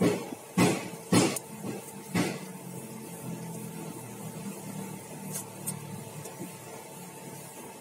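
Paper masking tape being pulled off the roll in four quick rips in the first couple of seconds, over a steady low machine hum.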